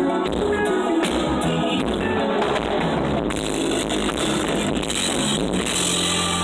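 Live band music through a stadium PA system during a sound check: drums and instruments playing, with some singing.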